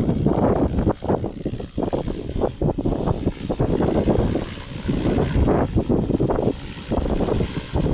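Radio-controlled helicopter hovering in strong wind, a steady high whine under irregular gusts of wind buffeting the microphone.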